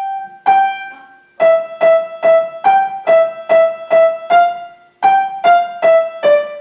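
Piano played one note at a time in a simple melody, about two and a half notes a second, with a short break about a second in and another near five seconds in.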